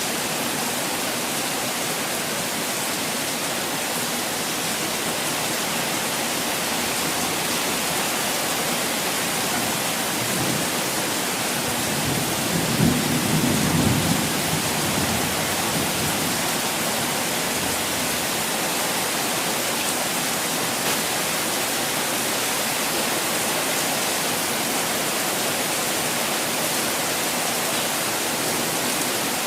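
Steady, dense hiss of falling water, even throughout, with a brief low rumble swelling up about halfway through.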